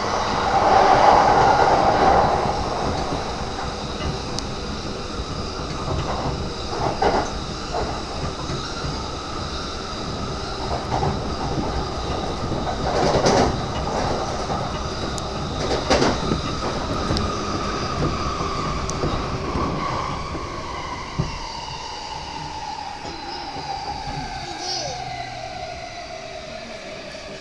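Inside an E235-series commuter train car running on the rails: a steady rumble of wheels and rail, with a few short clattering swells. A high whine from the electric drive holds one pitch and then slides steadily lower over the last third, as the train slows.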